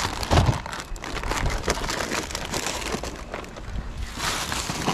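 Packaged cookies being handled: plastic wrapping rustling and crinkling with scattered small knocks, and a dull thump about half a second in.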